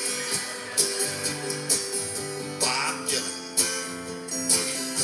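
Acoustic guitar strummed in a steady folk rhythm, about one strong strum a second with chords ringing in between, as an instrumental break between sung verses.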